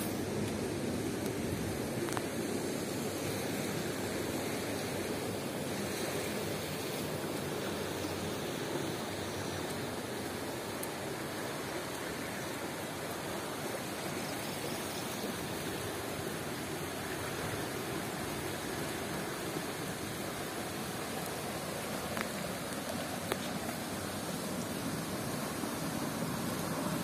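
Swollen rainwater rushing steadily down a concrete drainage channel, a continuous even rush of running water.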